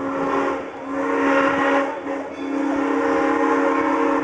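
Steam whistle of Valley Railroad No. 97, a 2-8-0 Consolidation steam locomotive, blowing as it approaches: a loud, steady pitched whistle in three blasts, two of about a second each and then a long one.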